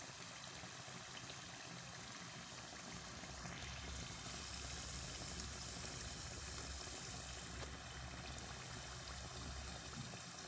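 Almond briouats deep-frying in hot oil: a steady sizzle of bubbling oil, a little louder from about four seconds in.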